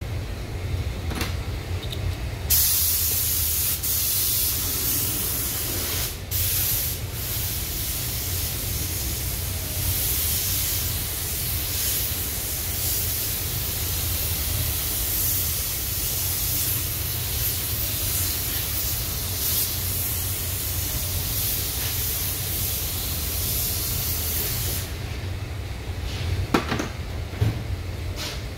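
Compressed-air spray gun hissing steadily as a coat of filler primer is sprayed onto a car body panel. It starts about two seconds in, breaks off briefly near six seconds and stops a few seconds before the end, over a steady low hum.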